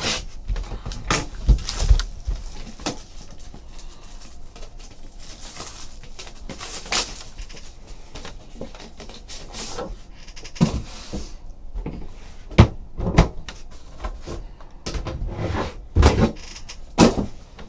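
Unboxing a sealed trading-card hobby box: a box cutter slits the plastic wrap, then the cardboard box and its lid are handled. The result is a string of scrapes, taps and knocks on the table, with stretches of plastic rustling in between.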